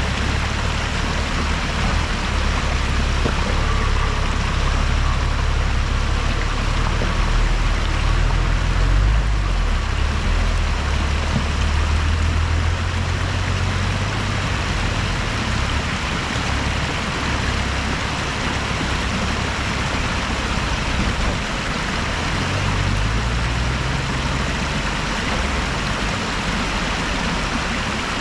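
Off-road 4x4 engine running at low revs, its low rumble shifting in pitch a few times, under a steady rushing hiss.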